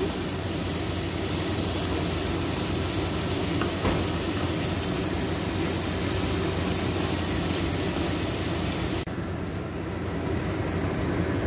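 Thinly sliced onions sizzling steadily in hot mustard oil in a pan. About nine seconds in, the high part of the hiss drops away suddenly.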